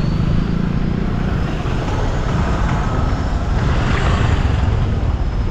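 Steady vehicle and road noise, a low rumble under an even hiss, swelling briefly about four seconds in.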